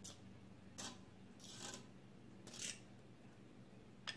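Fried eggplant strips being shaken out of a stainless-steel mesh strainer into a plastic bowl: three short, faint scraping rustles about a second apart, then a sharp click near the end.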